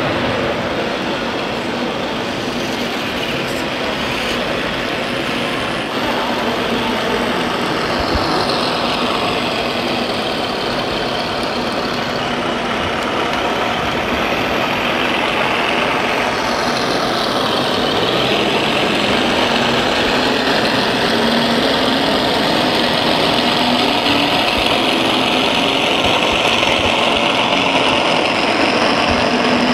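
Radio-controlled scale model of a Ural 6x6 army truck crawling through mud. Its motor sound rises and falls in pitch with the throttle.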